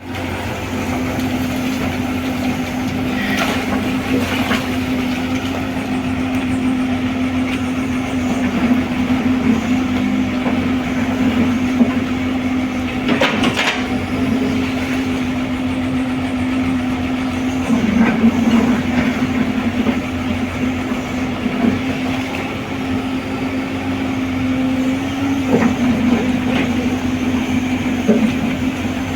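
A crawler excavator's engine running steadily under work, a constant drone with a few sharp knocks, the loudest about thirteen seconds in.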